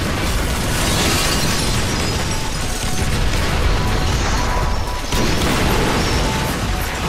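A loud explosion: a long, dense rumble that swells again about five seconds in, under dramatic background music.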